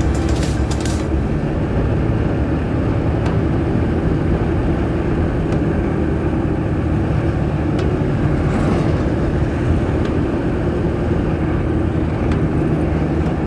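Motorcycle, likely a Bajaj Pulsar 180, riding along with its engine running steadily, mixed with road and wind noise.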